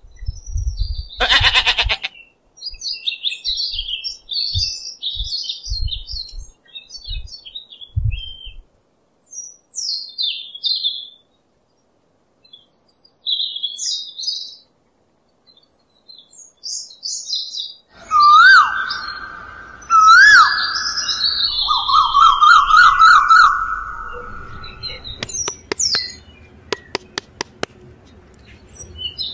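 A sheep bleating once, then small birds chirping and twittering for several seconds. Later a loud warbling whistle-like call swoops and trills for a few seconds, and a run of sharp clicks comes near the end.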